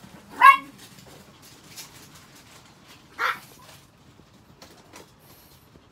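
Chihuahua barking: two short barks, a loud one about half a second in and another about three seconds later.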